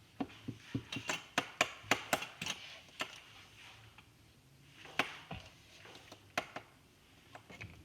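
Irregular sharp clicks and taps, several a second for about the first three seconds, then a few scattered ones.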